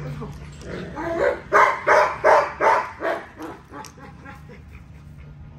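A dog barking in a quick run of about seven barks, roughly three a second, that stops after a couple of seconds.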